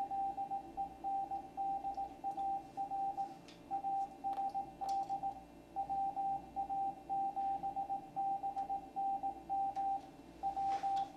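Morse code (CW) of W1AW's ARRL bulletin broadcast, heard through a shortwave receiver: a single whistling tone keyed on and off in dots and dashes at a steady pace, over faint radio hiss with a few crackles of static.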